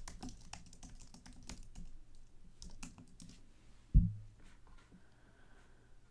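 Typing on a computer keyboard: a quick run of key clicks as a search term is entered. About four seconds in comes a single low thump, the loudest sound, followed by a few faint clicks.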